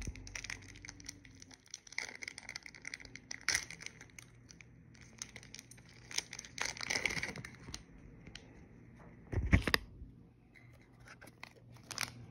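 Yu-Gi-Oh booster pack wrapper being torn open and crinkled in short, irregular rustles, with a single loud thump about nine and a half seconds in.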